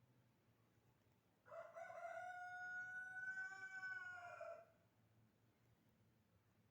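A rooster crowing once in the distance: one long, drawn-out crow lasting about three seconds, rising at the start and falling away at the end.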